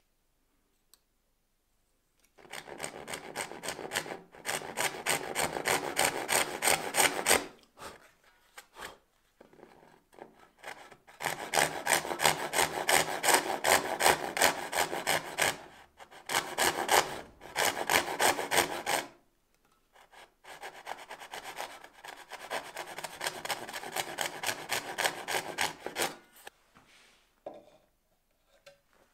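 Hand backsaw cutting through a wooden board: three runs of quick, regular back-and-forth strokes with short pauses between them.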